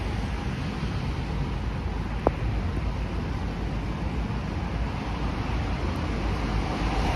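Steady rushing of wind and ocean surf, heavy in the low end, with a single sharp click about two seconds in.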